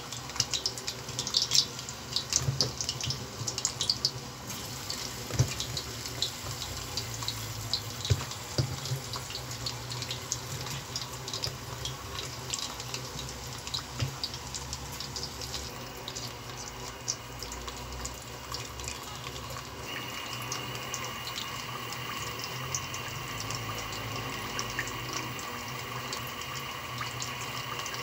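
Peeled sweet potato chunks deep-frying in hot oil in an aluminium pan: a steady sizzle full of quick crackles and pops, busiest in the first few seconds.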